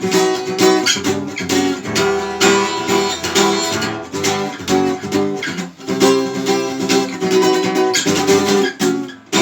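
Acoustic guitar strummed in a steady rhythm, playing the instrumental close of the song with no singing. Near the end the strumming breaks off briefly, then a final chord is struck and left ringing.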